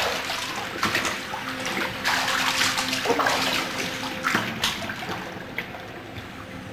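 Water sloshing and splashing as hands wash in a kitchen sink full of soapy water, in irregular surges, with a faint steady tone underneath.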